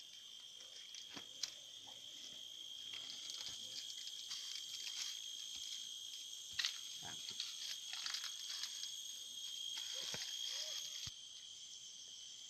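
Steady high-pitched chorus of insects such as crickets or cicadas, dropping a little in loudness near the end, with scattered light clicks and knocks.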